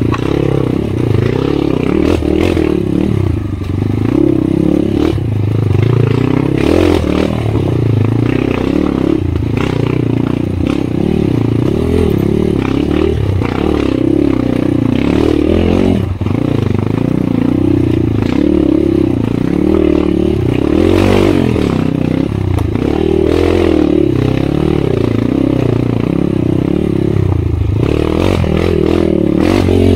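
Kawasaki KLX 150's single-cylinder four-stroke engine revving up and down as the dirt bike is ridden along a rough, rocky trail. Knocks and rattles come through as it goes over the uneven ground.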